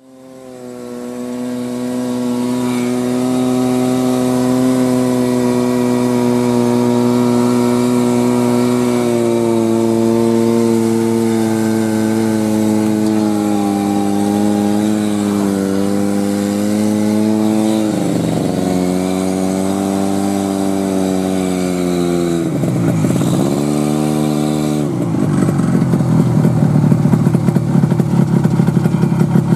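Buran snowmobile's two-stroke engine running steadily under way, fading in at the start. Its pitch dips briefly twice past the middle, then drops to low revs with a rapid pulsing beat near the end.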